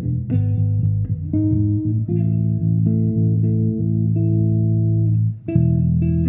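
Yamaha TRB electric bass played solo through a Markbass amplifier, several notes sounding together as held chords. The notes ring on for a few seconds, break off briefly about five and a half seconds in, then new notes start.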